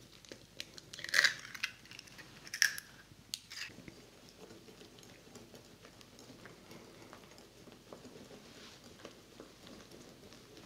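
Eggs cracked and broken into a glass bowl of flour, with two sharp shell cracks in the first three seconds, then a wire whisk stirring quietly and steadily in the glass bowl.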